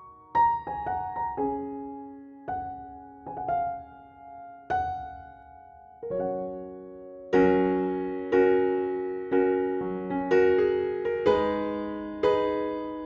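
Background piano music. Single notes and small chords are struck and left to fade, sparse at first, then louder, fuller chords come about once a second from about halfway through.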